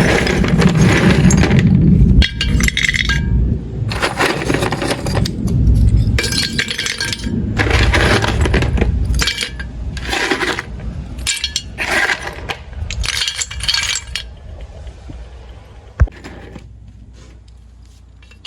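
Pieces of a broken pot being smashed into smaller shards for drainage: repeated crunching, clinking breaks in about a dozen loud bursts, dying away over the last few seconds, with one sharp click near the end.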